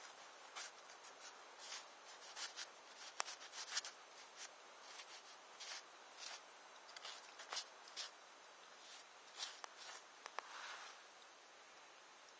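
Wood campfire crackling, with irregular sharp snaps and pops over a faint steady hiss.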